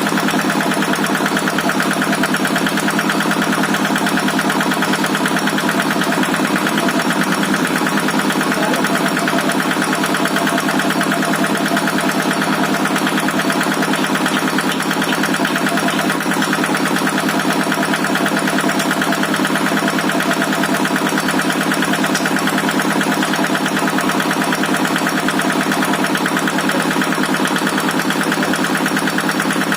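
Kubota RD65DI-1S single-cylinder diesel engine running at a steady speed, its even firing chug unchanged throughout.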